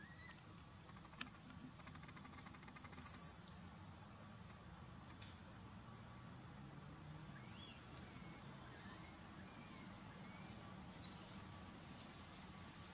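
Steady high-pitched drone of insects in the forest. Two short, high, arching calls, about three seconds in and again near the end, are the loudest sounds, with a few faint chirps in between.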